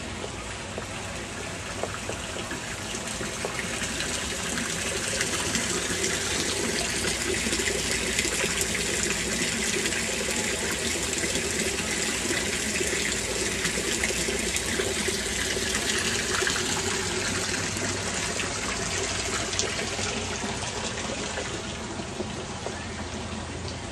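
Garden wall fountain, water falling in thin streams from a ledge and splashing steadily; it grows louder over the first few seconds and fades again near the end.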